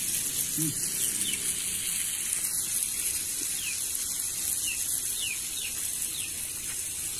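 Steady high sizzle of fish frying in hot oil, with short falling bird chirps every second or so over it.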